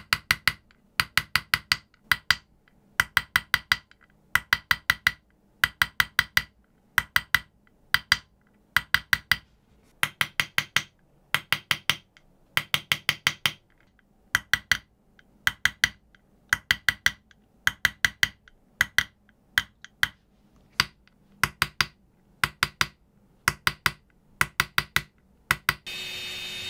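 Small engraving hammer tapping a steel hand chisel into a kitchen knife's blade in quick bursts of three to five sharp, briefly ringing taps, about one burst a second. Near the end a handheld electric rotary tool starts with a steady whine.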